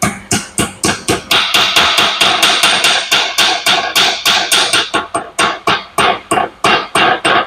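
A hammer tapping a new wiper seal into the gland of a hydraulic cylinder: quick, even strikes, about five a second, each ringing on the steel gland, working the seal in around its edge.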